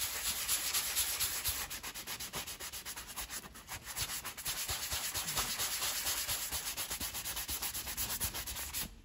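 Hand-held foam sanding pad rubbed in quick circles over rough, cracked vinyl seat upholstery, a fast scratchy rasp that smooths the surface before filling. It eases briefly about three and a half seconds in and stops just before the end.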